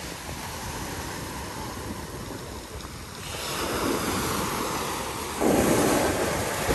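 Rough sea surf washing onto a fine pebble beach. The wash swells louder about three seconds in, and a bigger wave crashes in about a second and a half before the end.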